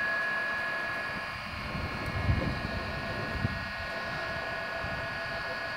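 DJI Phantom 2 quadcopter's motors and propellers running at a hover: a steady whine of several overlapping tones, with two brief low rumbles of air on the microphone a little over two seconds in and again about a second later.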